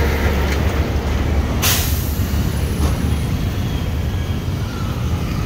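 Road traffic of minibus taxis, trucks and motorcycles with a steady low engine rumble. About a second and a half in, a short sharp hiss of air sounds, a truck's air brake releasing.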